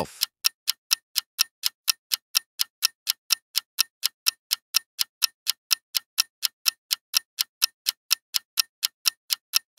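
Countdown-timer sound effect: a clock ticking evenly and quickly, about four to five ticks a second.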